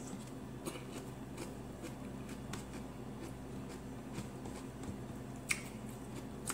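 Close-up eating sounds: chewing with small wet mouth clicks and smacks while rice and grilled pork liver are eaten by hand, with one sharper click about five and a half seconds in. A steady low hum lies underneath.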